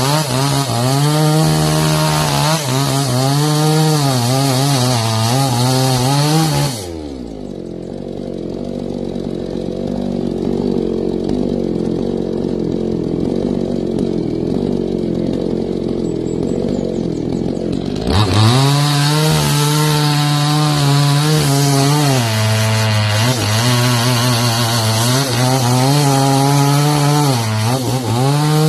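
Two-stroke chainsaw cutting mangosteen wood at full throttle, its pitch wavering as the chain bites. About seven seconds in it drops to idle, then about eleven seconds later revs back up and cuts again.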